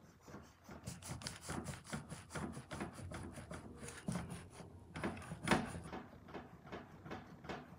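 Plastic action figures being handled and set down on a ledge: irregular light clicks and knocks, several a second, with the loudest knock about five and a half seconds in.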